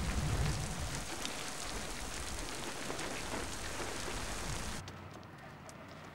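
Steady rain falling, a dense even hiss, that stops abruptly almost five seconds in, leaving a quieter background with a few faint ticks.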